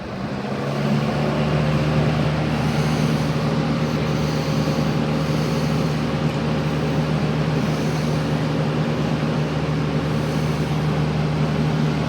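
Haier FBP020W box fan with a McMillan motor running on its high setting: it comes up to speed over about the first second, then holds a steady rush of moving air over a low motor hum.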